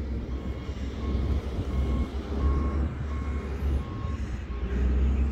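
Backup alarm of a reversing construction vehicle, beeping steadily about twice a second, over a low rumble.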